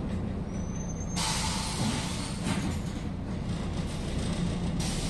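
City bus air system letting out a sudden loud hiss about a second in that lasts roughly three and a half seconds and then cuts off, over the steady low hum of its diesel engine. Just before the hiss there is a faint high whine.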